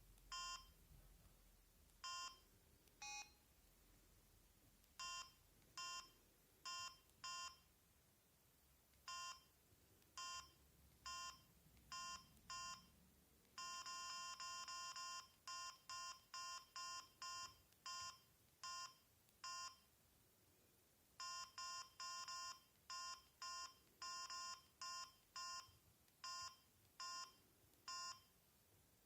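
Samsung SGH-M600 mobile phone key beeps as the menus are browsed: short electronic beeps of one pitch at uneven intervals, at times in quick runs as keys are pressed in rapid succession. One lower-pitched beep comes about three seconds in.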